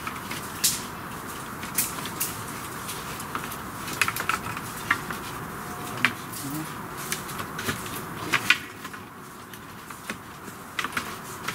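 Wooden sticks and poles clacking and rubbing against one another as branches are pressed down into a woven stick wall. Irregular sharp knocks and crackles, with the loudest cluster about two-thirds of the way through.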